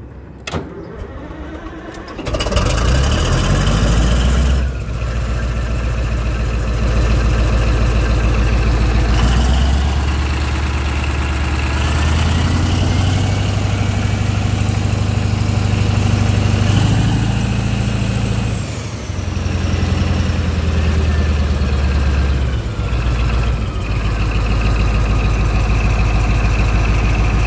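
Caterpillar D11N bulldozer's Cat 3508 V8 diesel engine starting about two seconds in, then running loudly with its speed rising and falling several times before settling to a steady run near the end.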